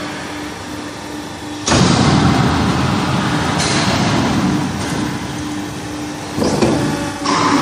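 Square-pipe end-forming machine running with a steady motor hum. About two seconds in, a sudden louder, rushing mechanical noise sets in as the machine works the pipe, and it rises again near the end.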